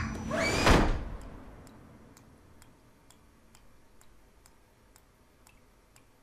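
A child's scream cuts off as a door slams shut a little under a second in, the slam ringing away over about a second. After it comes faint, steady ticking, about two ticks a second.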